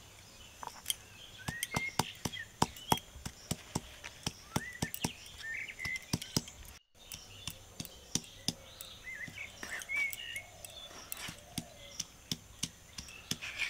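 Round stone pestle knocking and crushing ginger, green chillies and cumin on a flat stone grinding slab (shil-nora), a quick irregular run of sharp knocks. Birds chirp now and then, and after a short break about halfway the sharp clicks carry on.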